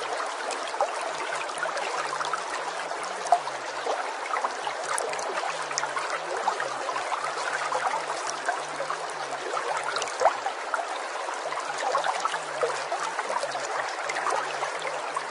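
Steady running water of a stream, with many small irregular splashes.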